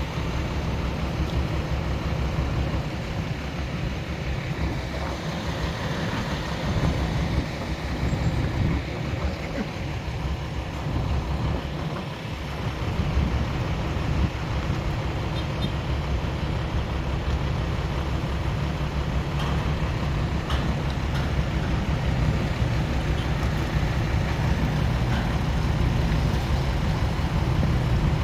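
Steady low rumble of motor-vehicle noise, with no clear single event standing out.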